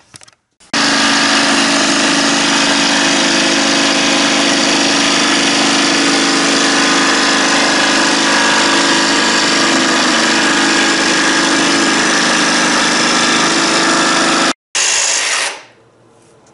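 Cordless jigsaw cutting the cockpit opening out of an epoxy-coated cedar-strip deck, running steadily and loudly for about fourteen seconds. It stops for a moment near the end, runs briefly again, then cuts out.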